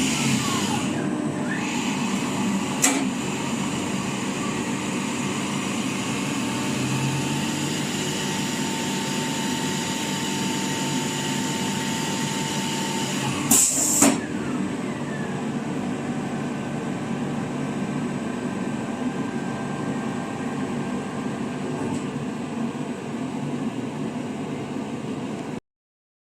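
Emco EmcoTurn 220 CNC lathe running with a steady machine hum and a high whine, broken by sharp clacks about 3 seconds in and again twice around 14 seconds. The sound cuts off suddenly near the end.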